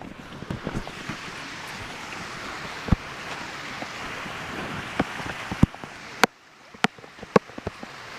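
Steady rushing-water hiss with several sharp knocks scattered through it; the hiss drops away suddenly about six seconds in, then slowly comes back.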